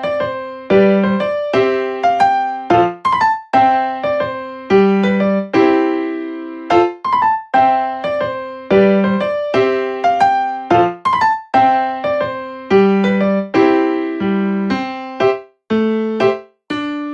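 Background music: a light electric piano tune of short repeated chords in a bouncy, regular rhythm.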